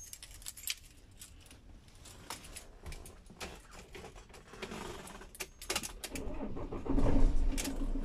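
Keys jangling and rattling, then about seven seconds in the Citroën Relay van's diesel engine starts and settles into a steady idle.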